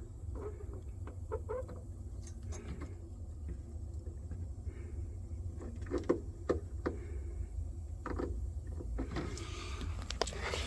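Light clicks and taps of hand tools and tubing being handled over a steady low hum.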